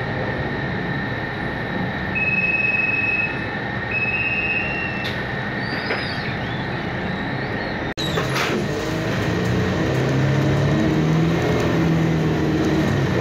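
Cabin noise inside a Zhong Tong articulated city bus: a steady drone of the running engine with a thin high whine, and two short electronic beeps a couple of seconds in. About eight seconds in the sound cuts out for an instant, then the low engine note comes through louder as the bus moves off.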